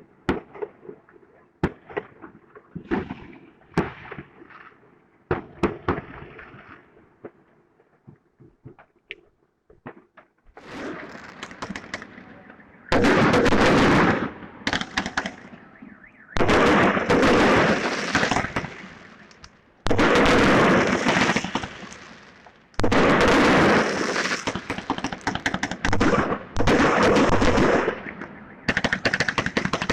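Fireworks going off: scattered bangs and pops at first, then from about thirteen seconds in, long runs of dense, rapid crackling volleys, loud enough to overload the microphone.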